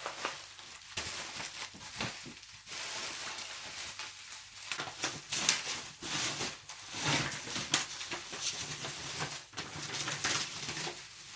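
Rustling and scraping from things being handled by hand, with scattered small clicks and knocks.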